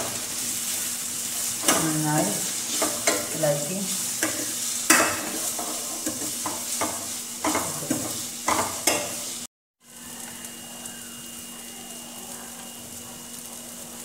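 Sliced onions, green chilli and tomato sizzling in oil in a steel pan while a steel spoon stirs them, scraping and knocking against the pan. Just over halfway through, the sound drops out for a moment. After that only a quieter, steady sizzle goes on, with no stirring knocks.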